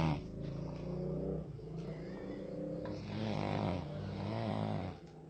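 People asleep snoring, a run of long, rough, buzzing snores one after another, overlapping at times.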